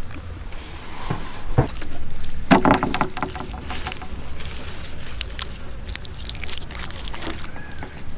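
Hands rubbing masala paste onto a large fish, with irregular soft knocks and rubbing noises over a low steady rumble.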